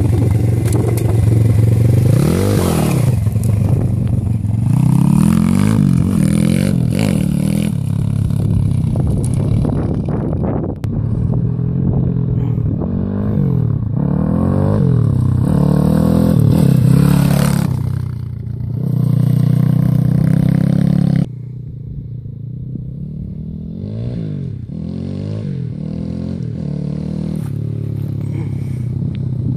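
Forza 140cc pit bike's single-cylinder four-stroke engine revving hard and shifting up again and again, its pitch rising and falling with each gear. At the start it spins the rear wheel on gravel. About two-thirds of the way through it drops suddenly to a quieter, more distant run.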